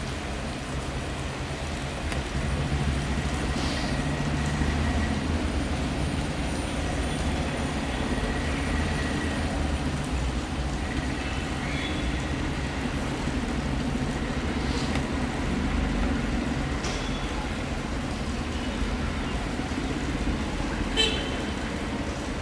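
Steady low rumble of motor vehicle engines and traffic, with faint voices and a few short horn-like toots.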